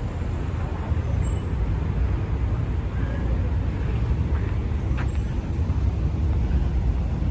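Steady low rumble of road traffic, with a few faint clicks about five seconds in.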